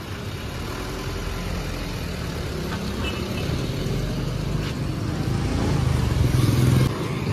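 A laden Mahindra Bolero Pik-Up mini truck's diesel engine pulling away and accelerating, getting steadily louder over the seconds.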